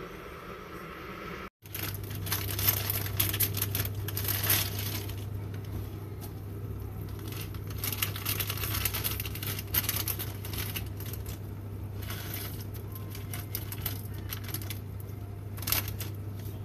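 Saucepan of water heating on an electric hob with a block of instant noodles in it: a steady low hum with scattered small ticks and clinks. Near the end a louder rustle, as a seasoning packet is handled.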